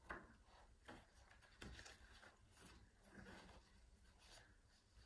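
Faint rustling of a large picture book's paper pages being turned and handled, several soft swishes in a row.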